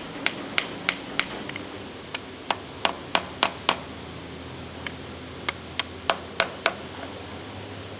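Hammer blows on the StuG III transmission, struck in quick runs of about three sharp hits a second with short pauses between runs.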